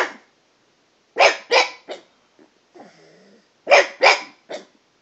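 Pug barking at a cat in short, sharp bursts: three quick barks about a second in and three more near the end, with a quieter low grumble between the groups.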